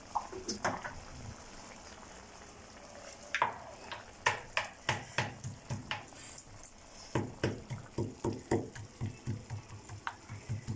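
A few roasted cashews crushed by hand in a small bowl: several sharp clicks, then from about seven seconds in a steady run of dull knocks, about three a second.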